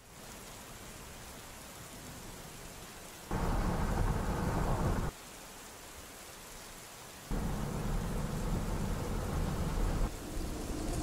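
Heavy rain falling steadily on a street at night, with two loud rolls of thunder, the first about three seconds in and the second about seven seconds in, each starting and stopping abruptly.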